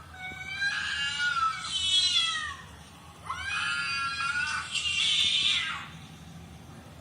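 Cat yowling: two long drawn-out calls, one after the other, the first sliding down in pitch as it ends.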